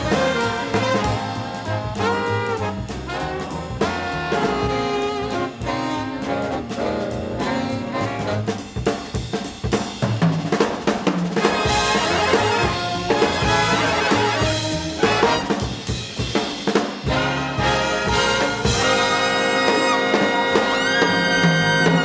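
Big band jazz from a cassette tape recording: a brass section of trumpets and trombones playing over a drum kit. Near the end the band holds long sustained chords.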